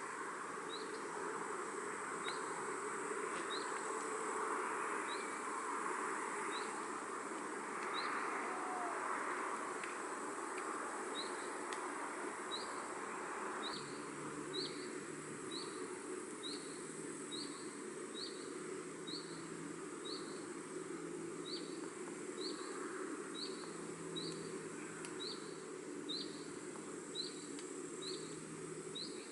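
Countryside outdoor ambience: a steady high insect hiss over a soft rushing of breeze, with a small bird repeating a short high chirp about once a second, quickening to about twice a second in the second half. About halfway through the rushing thins suddenly and a faint low hum comes in.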